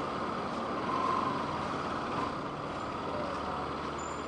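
Steady traffic noise with a motorcycle engine running underneath.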